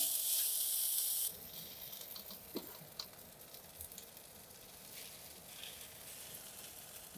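Iberico pork roll sizzling on a hot cast-iron grill grate. A loud, high hiss for about the first second drops off suddenly to a quieter steady sizzle with scattered small crackles.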